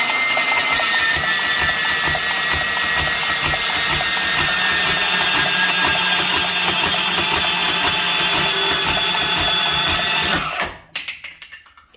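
A power tool cutting through an engine's oil pickup tube, running steadily with a high whine for about eleven seconds, then stopping suddenly near the end.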